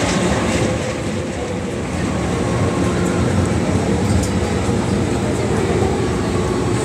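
MTR Tsuen Wan Line train heard from inside the car, running at speed out of a tunnel and along a station platform: a steady, loud wheel-and-track running noise with a faint steady whine that becomes clearer in the second half.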